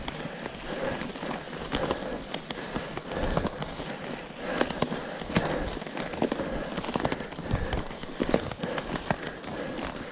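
Mountain bike going over rough ground off the trail: a dense, irregular run of sharp cracks, clatters and rattles from the tyres and the bike.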